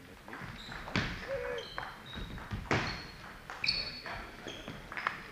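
Table tennis rally: the ball clicking sharply off bats and table about once a second, with shoes squeaking briefly on the hall floor between strokes.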